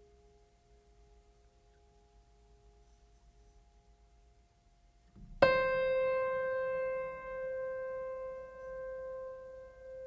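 Relaxing background music: faint held tones, then about halfway through a piano note struck loudly and left to ring and slowly fade.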